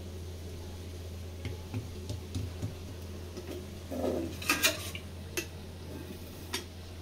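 Light clicks and then a louder cluster of clinks and knocks of kitchen utensils on a countertop, about four to five seconds in, over a steady low hum.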